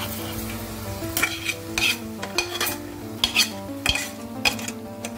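Metal spoon stirring a wet saag and dal mixture in a hot metal kadhai, scraping and clinking against the pan about twice a second, over a light sizzle from the pan.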